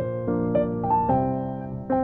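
Background piano music: soft chords struck about once a second with a simple melody over them.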